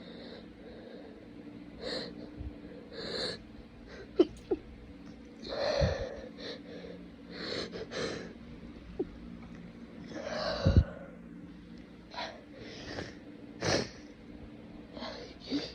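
Repeated snotty sniffling through a congested, runny nose, about a dozen short wet sniffs at uneven intervals. Two sudden louder, sharper bursts come about four seconds in and near eleven seconds.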